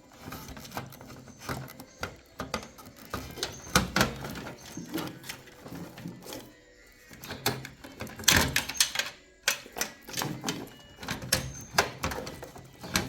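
Irregular clicks, taps and rattles of hands working metal and plastic parts inside a PC case, around a hard drive stuck in its drive cage, with a louder cluster of knocks about eight seconds in.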